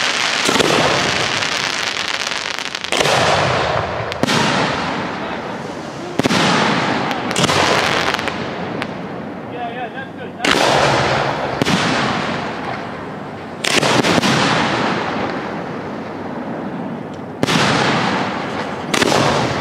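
Display-grade (1.3G) aerial firework shells bursting overhead: about ten sharp booms spread over the stretch, a second or a few apart, each followed by a long echo that fades slowly.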